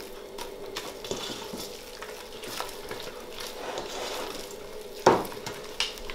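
Silicone spatula stirring and scraping thick mashed potato around a stainless steel pot, a soft continuous scraping with small ticks. Near the end come two sharper knocks of the spatula against the pot.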